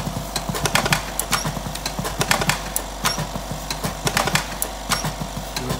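Electric cigarette filling machine (thick-cigarette model) running: a steady motor hum with a quick train of sharp mechanical clacks as it fills the tubes.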